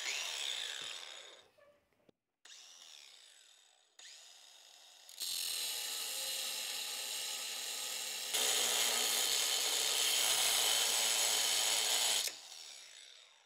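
Angle grinder (disc cutter) running down in the first second or two, then cutting steadily from about five seconds in, louder after about eight seconds, and stopping about a second before the end.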